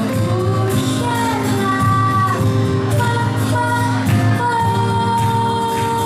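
A live acoustic band with a woman singing lead, backed by acoustic guitar, violin and keyboard, with some long held notes near the end.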